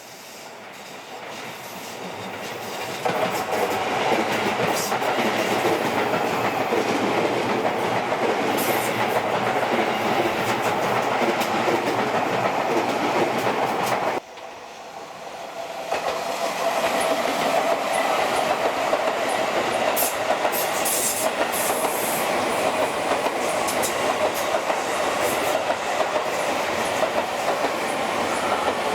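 Seibu 30000 series electric train running by on the rails, growing louder over the first few seconds and then a steady run of wheel noise with clickety-clack. It cuts off abruptly about halfway through, and a second pass builds up and runs on steadily.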